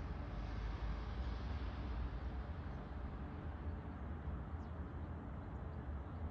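Railway station ambience: a steady low rumble and hiss, with a higher rushing noise dying away in the first second.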